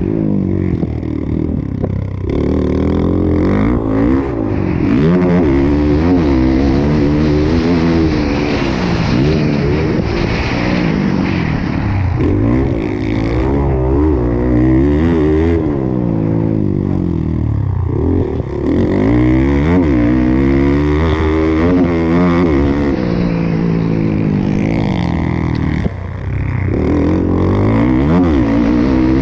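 Motocross bike engine heard from the rider's chest-mounted camera, revving up and down continuously as the throttle opens and closes around a dirt track, dropping off sharply several times before picking up again.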